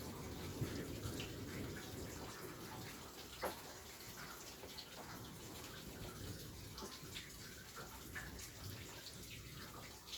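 Rain falling steadily: a continuous dense patter with scattered louder drop hits, the sharpest about three and a half seconds in.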